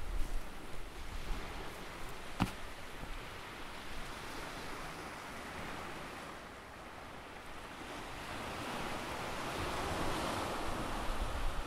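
Small Pacific surf breaking and washing up a sandy beach: a steady hiss that eases about six seconds in and swells again toward the end. A single sharp click about two seconds in.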